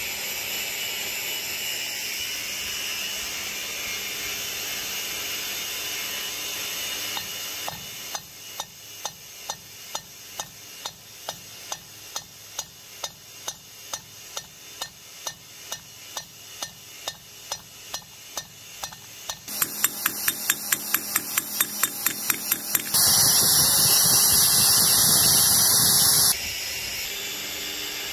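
Hammer striking a nail on the flat face of a small bench vise, about two blows a second, then a faster, louder run of about four a second: the nail being forged out into a blade. Before the hammering there is a steady rushing noise, and near the end a loud steady noise for about three seconds.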